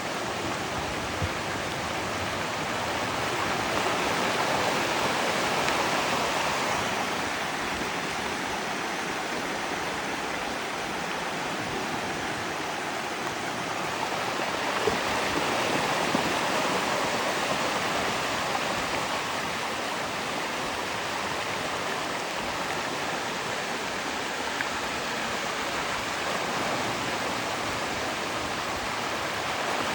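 Runoff water rushing steadily through a flood control channel, swelling a little now and then.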